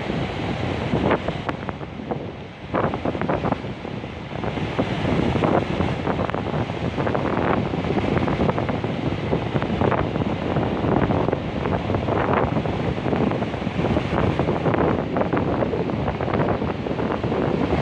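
Sea surf breaking and washing on the shore in a continuous rush, with wind buffeting the microphone.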